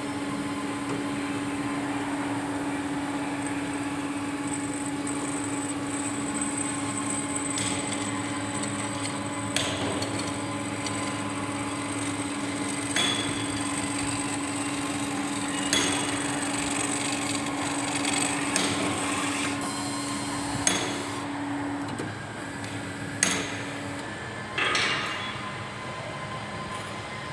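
Semi-automatic metal-cutting band saw running with a steady hum. Sharp metallic knocks come every few seconds, and the hum stops near the end.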